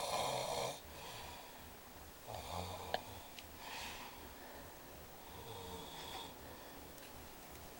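A sleeping man snoring: a loud rasping snore at the start, then two weaker ones about two and a half and five and a half seconds in, with a small click near the middle.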